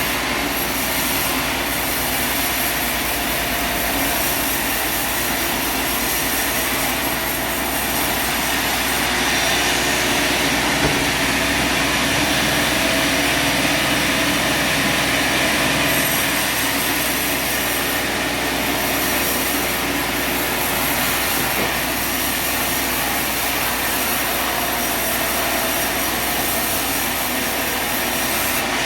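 Sawmill running steadily: a constant mechanical drone of motor and blade with a hiss across the high end.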